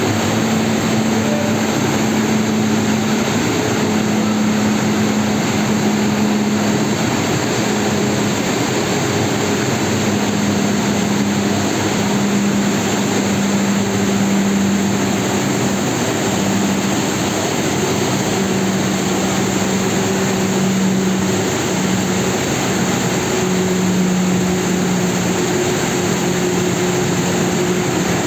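Glass tempering furnace line running: a steady rush of air from its fans and blowers, with a hum that steps slightly lower in pitch a few times.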